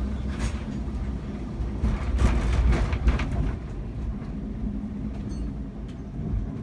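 Lisbon tram running on street rails, heard from inside the car: a steady low rumble with a louder stretch of rattling and wheel noise about two to three seconds in.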